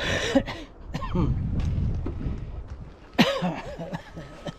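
A man coughing and clearing his throat: a sharp cough at the start and another about three seconds in, with short throaty voice sounds between.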